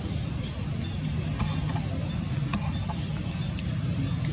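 Steady low motor-like rumble under a constant high-pitched insect drone, with a few faint clicks.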